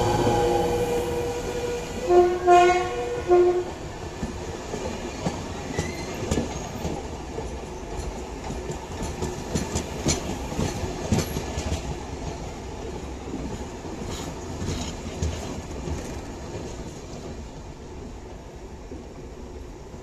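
Electric passenger train with locomotive E 68 076 passing close by. The locomotive's horn ends just after the start, then gives a few short blasts about two to three seconds in. After that the carriage wheels click over the rail joints with a steady rumble that gradually fades as the train pulls away.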